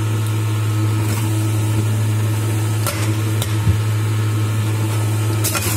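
Electric centrifugal juicer's motor running steadily with a low hum, while juice is being extracted. A few light clicks about three seconds in and near the end.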